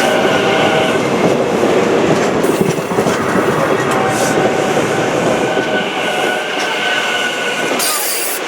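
Train passing close, its wheels clicking over the rail joints, with steady high whining tones running over the rumble.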